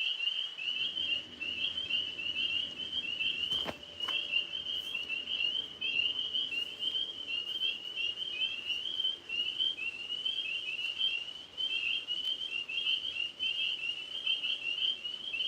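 Chorus of tree frogs: many overlapping, rapid high chirping calls running without a break. A single sharp click sounds a little under four seconds in.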